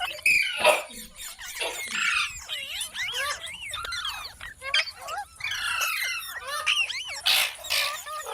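Parrot chattering: quick wavering whistled notes, broken by harsh screeches, the longest near the end.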